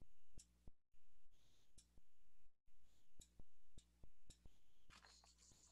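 A string of faint, irregular clicks, about ten over a few seconds, over a low steady electrical hum.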